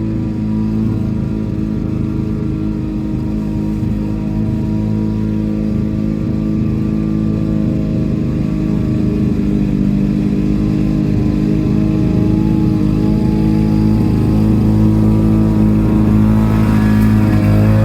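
Lawn mower engine running steadily at speed, its pitch and level holding even and swelling slightly near the end.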